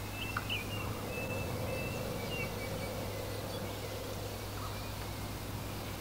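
Songbirds chirping over a steady wind hiss. A run of short chirps and a few held whistled notes comes in the first half, with only scattered faint chirps after that.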